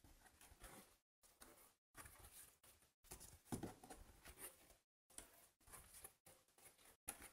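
Faint rustling and scraping of stiff die-cut 3D paper puzzle sheets being handled and flipped over, in short spells broken by brief silent gaps.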